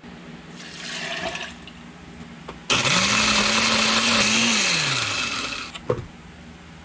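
Oster countertop blender running for about three seconds: its motor spins up, holds a steady pitch, then winds down, with liquid churning in the glass jar. A single clunk comes near the end.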